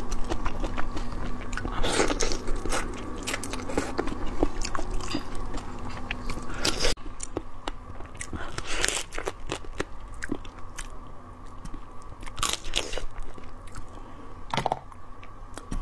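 Close-miked biting, chewing and crunching of spicy marinated seafood, with many sharp cracks: first a shrimp pulled apart and eaten, then, after an abrupt break about seven seconds in, a marinated crab's shell and legs bitten and cracked.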